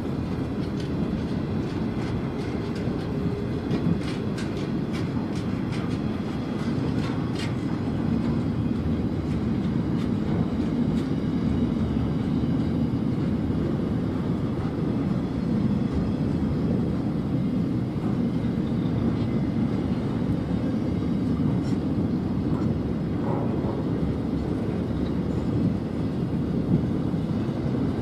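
Container wagons of a long intermodal freight train rolling past on the mainline: a steady rumble of steel wheels on rail, with a run of sharp clicks about four to seven seconds in.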